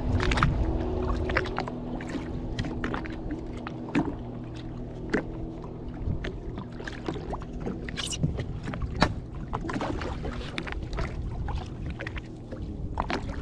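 Irregular splashes and knocks as a snapper is brought up and landed at a jet ski's side, over a steady low engine hum.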